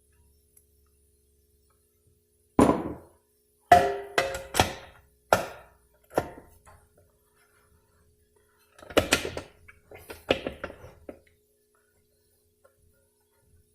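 Metal transmission parts knocking and clanking with a ringing tone: a Dodge 46RE's rear/reverse drum being worked into place in the case. About half a dozen separate knocks come a few seconds in, then a quick rattling cluster of knocks later on.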